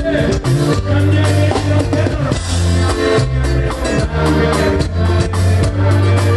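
Live band music: drums beating a steady rhythm under electric bass notes and guitars.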